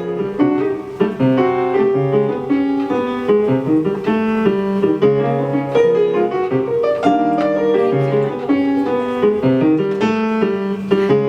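Jazz piano playing a busy passage of chords and quick runs of notes.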